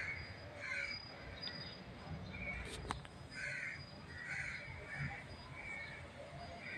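Sliced onions frying faintly in hot oil in a steel kadai as a steel spatula stirs them, with one sharp clink about three seconds in. A crow caws repeatedly in the background, short calls every half second to a second.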